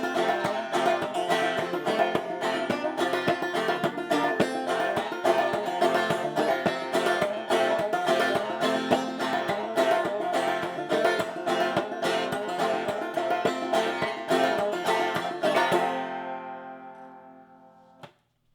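Five-string banjo played clawhammer style, a fast run of plucked notes in the key of F. About three seconds before the end the playing stops and the last chord rings out and fades away.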